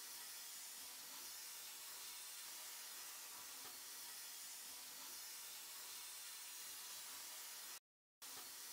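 Sandblasting gun in a blast cabinet hissing steadily as it blasts abrasive onto a metal lever handle. The hiss cuts out for a moment near the end and then resumes.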